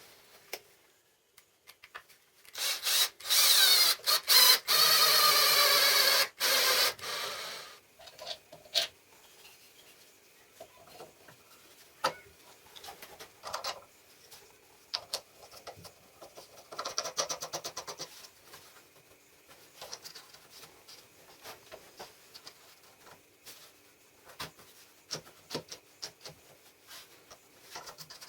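Workshop tool work: a loud tool runs for about five seconds with a wavering pitch, then stops. Scattered clicks and knocks of parts being handled follow, with a second short burst of the tool later on.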